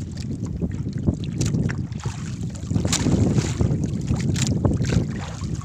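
Wind buffeting the microphone in a low, fluctuating rumble, with scattered sharp clicks and knocks.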